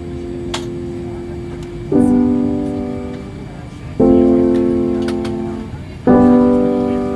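Background music: slow piano chords, a new chord struck about every two seconds and left to ring and fade, over a low steady rumble.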